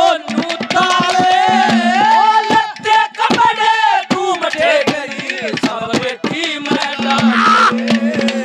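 Haryanvi ragni band music. A melodic line winds and bends over quick hand-drum strokes, with a steady low drone that drops out in the middle and returns about seven seconds in.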